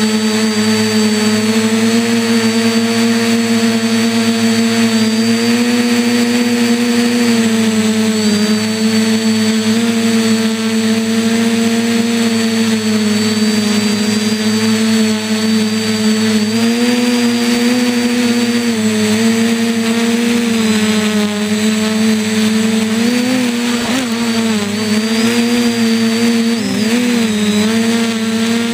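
Radio-controlled quadcopter's motors and propellers buzzing loudly, heard from the camera mounted on its frame. It is a steady hum whose pitch drifts gently up and down as the motors adjust, and it wavers more quickly near the end as the craft comes down low over the grass.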